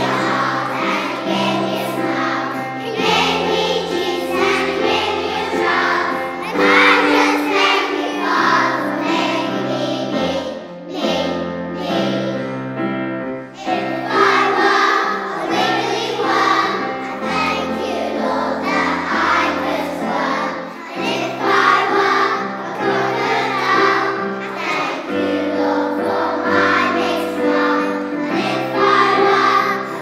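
A group of young children singing a song together in unison over an instrumental accompaniment with a steady, changing bass line.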